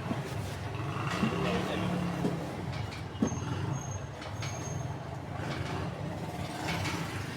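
Packaging material being handled as a parcel is wrapped, rustling and scraping, with a sharp click about three seconds in, over a steady low hum.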